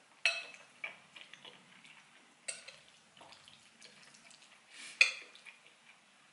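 A metal spoon clinking and scraping against a ceramic bowl while stirring and scooping saucy macaroni goulash: three sharp clinks, the last one loudest near the end. Soft, wet chewing and mouth sounds fill the gaps between them.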